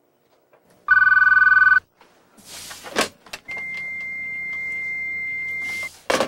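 Push-button desk telephone rings once for about a second: the alarm call placed by an electronic auto-dialer when a logic analyzer spots the hacker's login. The handset is lifted with a clatter, a steady high beep plays for about two and a half seconds, and the handset is put back down with a clunk at the very end.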